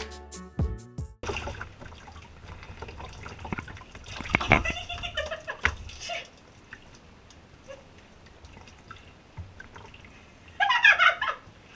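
Water splashing and dripping as a cat is washed in a tub of soapy water, with a short high cry about four and a half seconds in and a louder one near the end.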